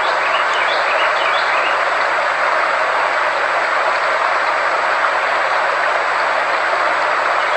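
Frequency-therapy soundtrack: a steady, even rushing noise, strongest in the middle range, over a faint low steady hum tone. A few short high chirps come in the first second and a half.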